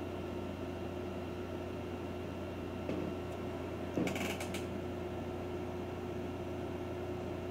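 Steady low machine hum with several constant tones, and a brief rustle or click about four seconds in.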